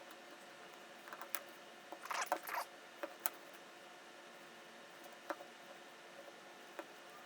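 Small metal clicks and scrapes of a steel pick working the pawl, detent ball and spring inside a Craftsman ratchet head: a quick cluster of light clicks a second or two in, then a few single ticks.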